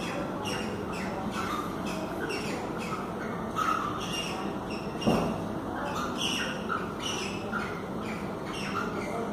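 Cockatiels mating, with short squawking chirps repeated about two to three times a second. One low thump about five seconds in.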